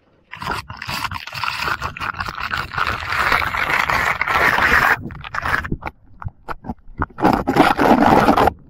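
Tall wet grass brushing and scraping against the camera as it pushes through, a loud continuous rustle. It breaks into a few separate swipes about five seconds in, then comes back loud near the end and cuts off suddenly.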